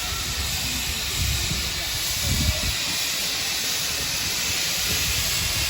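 Steam locomotive standing at the platform, hissing steam steadily, with a few low rumbles underneath.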